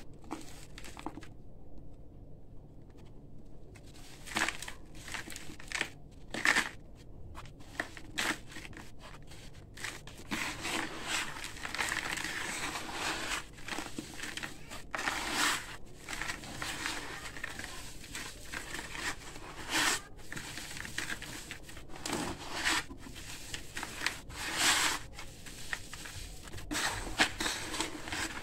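Soft, dusty concrete being crushed and kneaded by hand in a bucket of damp grit, giving irregular gritty crunching and scraping. The crunches are sparse at first and come thick and fast from about ten seconds in.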